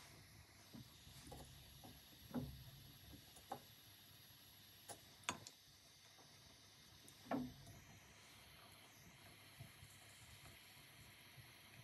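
Near silence: a faint steady hiss with a few soft clicks and taps of small metal tools on the work, the loudest about two and a half and seven and a half seconds in.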